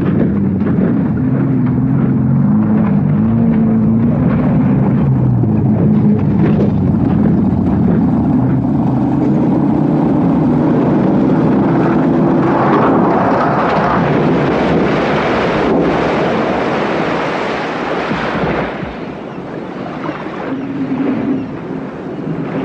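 GAZ-24 Volga's engine running hard as the car speeds along. About halfway through, a steady rush of water and spray takes over as it drives into the sea.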